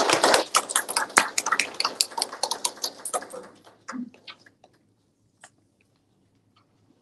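Applause from a small audience of hand claps, dense at first and thinning out over about four seconds until it stops, followed by a few faint stray clicks.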